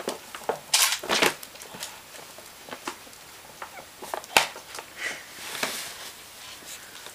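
Large dog food bag crinkling and rustling in irregular bursts as a Maltese dog roots around inside it with its head, the loudest crackles about a second in and again past the middle.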